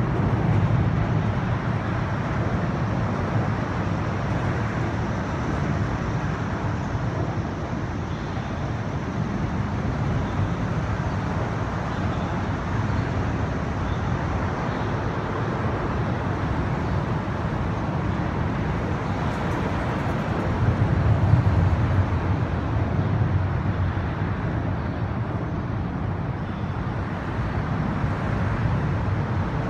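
Steady rumble of highway traffic on the overpass above, a continuous low drone that swells a little about twenty seconds in.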